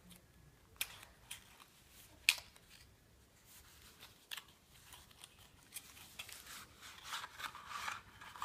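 A cardboard playing-card tuck box being opened by hand: a few sharp paper clicks and snaps as the seal and flap are worked open. Near the end comes a busy rustle of cardboard and cards as the deck slides out of the box.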